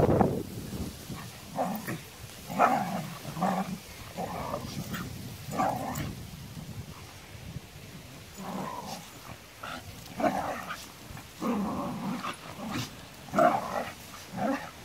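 A dog vocalising in play, a string of short bursts about a second apart with quiet gaps between.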